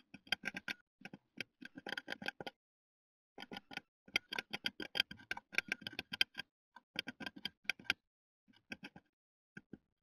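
Great tit pecking at the wooden inside wall of a nest box: rapid sharp taps in several bursts with short pauses, thinning to a few single taps near the end.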